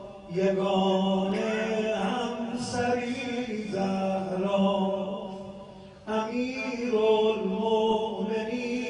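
A man's voice chanting a mourning elegy into a microphone in long, drawn-out melodic notes, pausing for breath about six seconds in.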